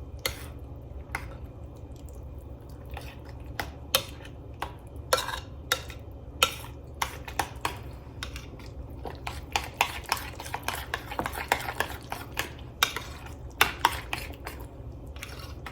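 A utensil stirring thick yogurt tzatziki in a bowl, with frequent irregular clinks and scrapes against the bowl.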